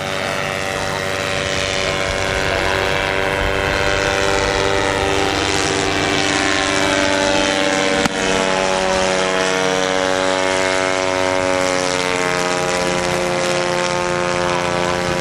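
Small two-stroke engine and propeller of an early biplane powered hang glider droning in flight overhead, its pitch sliding slowly. A single sharp click comes about eight seconds in.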